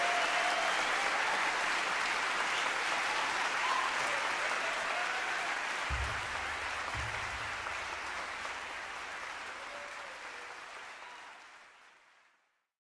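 Audience applauding at the end of a live instrumental performance, fading out to silence about twelve seconds in. Two low thumps sound about six and seven seconds in.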